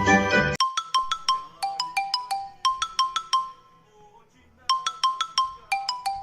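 Background music: a full passage that stops about half a second in, then a simple melody of struck, bell-like mallet-percussion notes, pausing briefly a little past the middle before carrying on.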